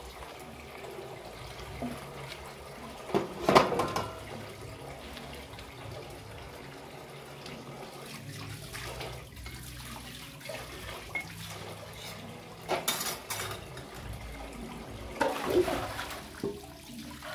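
Water scooped with a plastic dipper and poured over a small child being bathed, splashing in three separate pours: one a few seconds in and two close together near the end.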